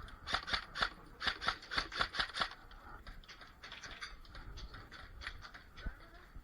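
Airsoft gunfire: a quick string of about ten sharp shots, roughly four a second, lasting a couple of seconds, then a few fainter scattered shots.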